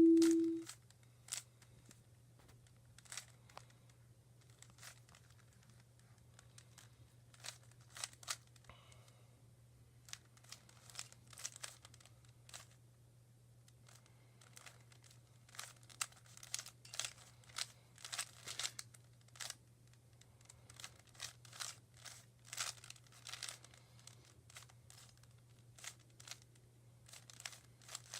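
Rubik's cube being turned by hand during a solve: faint, irregular plastic clicks and clacks that come in quick flurries with pauses between them. A steady beep tone cuts off just under a second in, and a low steady hum runs underneath.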